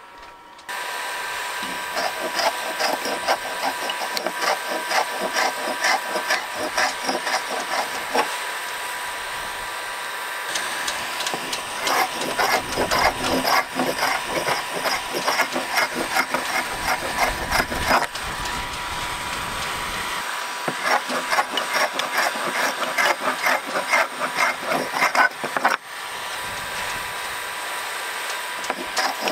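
Hot-air heat gun blowing steadily while a scraper strips old paint or varnish off a wooden yacht deck, with bursts of quick rasping scrapes.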